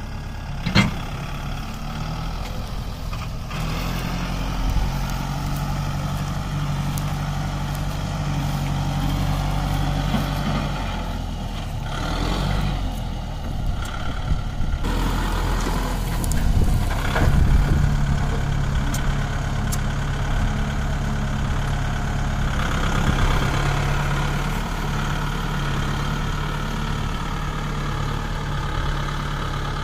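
Kubota MU5501's four-cylinder diesel engine running under load as the tractor reverses a loaded trolley, its note shifting up and down several times. A few sharp knocks stand out, the loudest about a second in and about seventeen seconds in.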